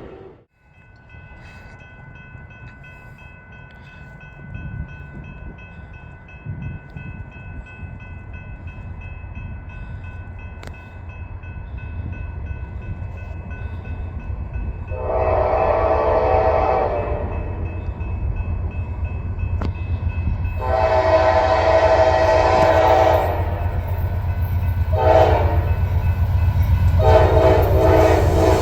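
Approaching diesel locomotive sounding its multi-chime air horn in the grade-crossing pattern of long, long, short, long, over an engine rumble that grows louder as it nears. A crossing bell rings steadily in the background.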